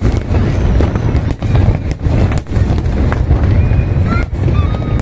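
Fireworks display: aerial shells bursting in a dense, continuous run of booms and crackles. A crowd's voices sound under it, with a few short high-pitched calls near the end.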